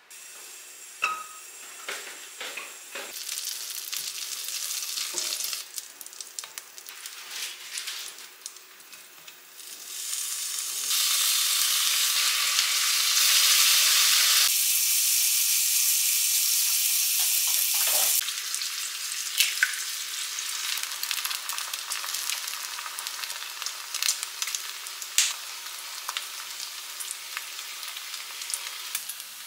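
Bacon and a slice of bread frying in oil in a nonstick frying pan: a steady sizzle that is loudest in the middle stretch, with scattered sharp clicks.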